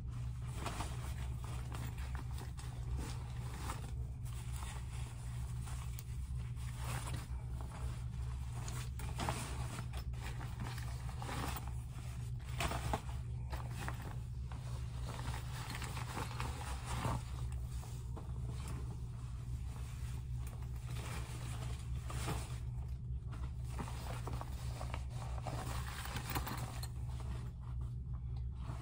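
Cloth diapers and wet bags being handled: fabric rustling and scraping on and off as inserts are pulled out of pocket diapers, over a steady low hum.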